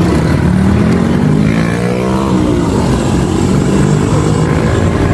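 A motor vehicle's engine running close by, loud and steady, its pitch sliding up and down about two to three seconds in as it passes.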